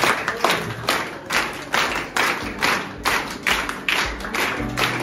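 Rhythmic hand claps in a steady beat, a little over two a second, with music underneath.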